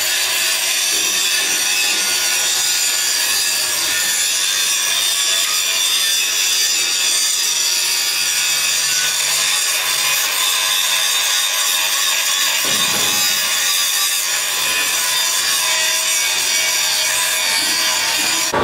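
A power tool grinding steadily without a break, a continuous high, rasping noise.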